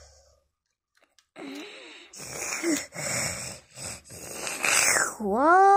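A person making mouth sound effects while playing with toy trains: rough, breathy noises from about a second and a half in, then one long voiced call near the end that rises, holds, and falls away.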